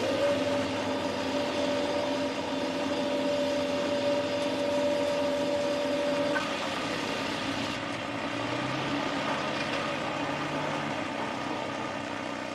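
A single long horn-like tone that slides up at the start, holds steady at one pitch for about six seconds and then cuts off, over a continuous mechanical rumbling noise.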